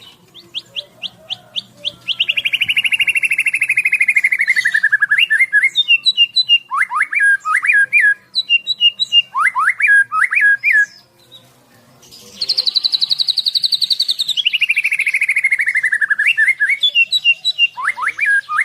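White-rumped shama (murai batu) in full loud song. Quick repeated notes lead into a long, rapid trill that falls in pitch, followed by clusters of short upward-sweeping whistles. After a brief pause about eleven seconds in, the bird repeats much the same phrase.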